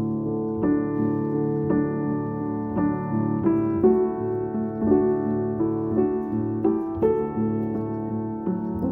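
Background piano music, with notes struck about once a second.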